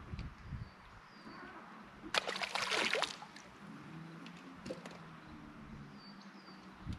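A burst of water splashing or sloshing for about a second, a little after two seconds in.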